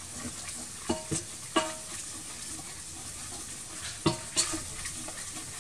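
Wooden spoon stirring a sizzling roux of hot oil, flour and paprika in a stainless steel pot, with a steady frying hiss. The spoon knocks against the pot a few times about a second in and again around four seconds in.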